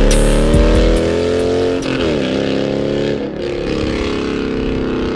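Car engine accelerating, its pitch climbing and then dropping sharply about two seconds in and again about a second later as it shifts up, then running at a steady pitch.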